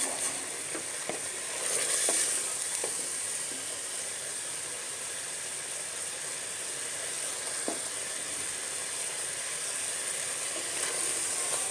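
Chicken and potato curry sizzling steadily in the pot as its liquid cooks off and the oil separates out, with a few light knocks about two, three and eight seconds in.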